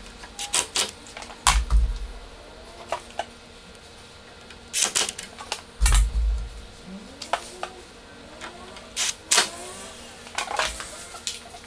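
Scattered sharp clicks and knocks of screws, a metal motor bracket and a drill/driver being handled against a wooden 2x4, with two dull thumps about a second and a half and six seconds in.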